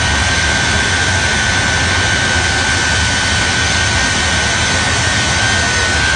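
Shockwave jet truck's three jet engines running steadily, with a constant high whine over the noise and no rise or fall.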